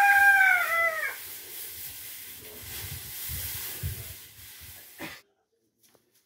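A single high-pitched animal call, about a second long and falling in pitch at the end, then straw being handled in a feed trough with a few low knocks. The sound cuts off abruptly about five seconds in.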